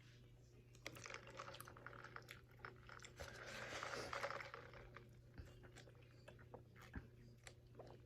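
Quiet close-up chewing of saucy chicken wings: soft wet mouth clicks and smacks, with a louder noisy stretch about three to four seconds in.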